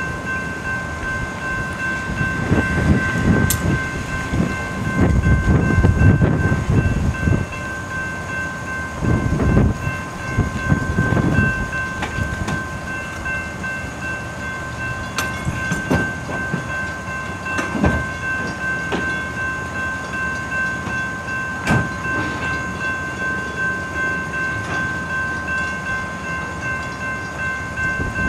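Freight train rolling through a road crossing: heavy rumbling of freight cars, loudest a few seconds in and again around ten seconds, followed by scattered sharp clacks of wheels over rail joints. A steady high ringing of the crossing-signal bell runs underneath.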